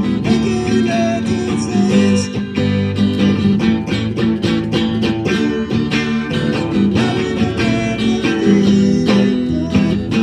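A live band playing an instrumental passage, with strummed guitar to the fore and a regular rhythm of strokes.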